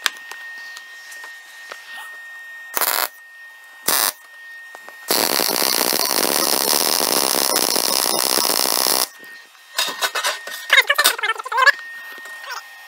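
MIG welding arc from an R-Tech 180 A inverter MIG welder on 2 mm steel flat bar: two brief arc strikes about three and four seconds in, then a steady crackling, sizzling arc for about four seconds as a bead is run. A shorter crackly patch follows near the end, and a thin steady high tone sounds in the quiet stretches.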